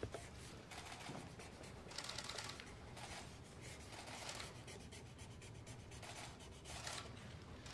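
A marker pen scratching across paper, faint, in several short strokes as a signature is written.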